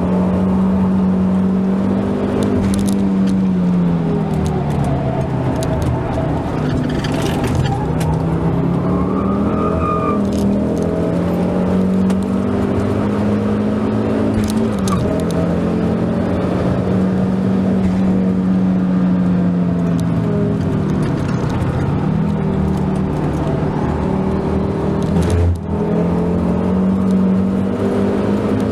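Ford Focus ST225's turbocharged five-cylinder engine heard from inside the cabin under hard track driving, its note rising and falling as the car accelerates and slows for corners. About 25 seconds in the sound breaks off briefly and comes back at a new pitch, like a quick gear change.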